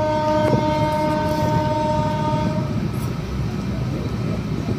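Locomotive horn sounding one long, steady blast of about two and a half seconds, cutting off sharply. Under it and after it comes the continuous rumble and rattle of a train running at speed.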